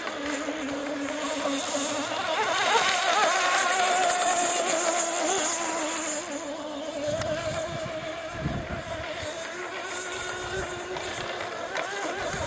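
Radio-controlled rigger hydroplane's OS 40 VRM two-stroke glow engine with tuned pipe running flat out on the water, a high buzzing note that wavers in pitch and swells louder a few seconds in as the boat passes, then eases off.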